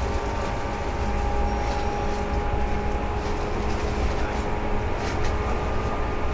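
Seibu 2000 series electric train running, heard from inside the car above the line breaker: a steady rolling rumble with several steady whining tones over it.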